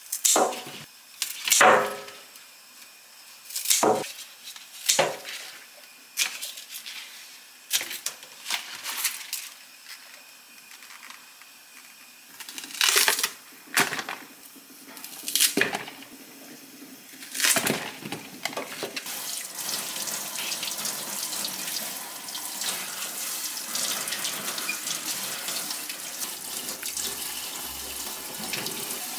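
Kitchen sounds: a string of sharp knocks and clatters as things are handled and set down, then, about two-thirds of the way in, a kitchen tap starts running steadily into the sink.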